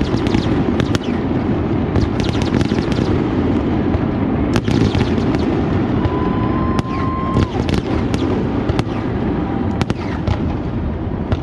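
Fireworks display: a continuous low rumble of booms with many sharp cracks and bangs throughout. A brief steady whistle-like tone lasts about a second, about halfway through.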